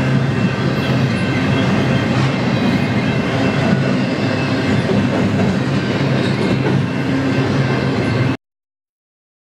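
Double-stack intermodal freight cars rolling past, with a steady rumble and clatter of wheels on rail. It cuts off suddenly about a second before the end.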